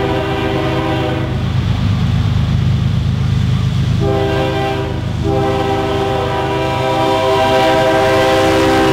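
CSX GE ES40DC freight locomotive sounding its air horn on approach. A blast ends about a second in and the diesel rumbles on alone; then comes a short blast, then a long one held through the end.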